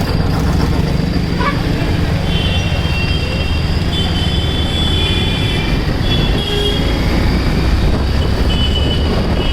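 Wind and road noise on a moving motorcycle in traffic, with its engine running steadily underneath. High-pitched squealing tones come and go from about two seconds in to six seconds in, and again near the end.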